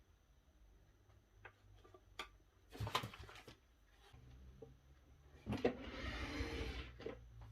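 Packaging being handled: scattered light clicks and knocks, a short rustle about three seconds in, and a louder, longer rustle of packaging from about five and a half seconds to seven seconds.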